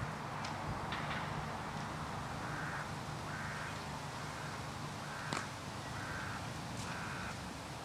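A bird calling in a series of about five short, evenly spaced calls, all at the same pitch. A few sharp clicks come in between, the loudest about five seconds in, over a steady low hum.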